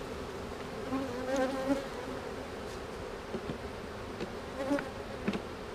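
Honeybees buzzing around an opened hive, a steady hum with single bees droning past close by about a second in and again near the end. A few light knocks as wooden frames are handled.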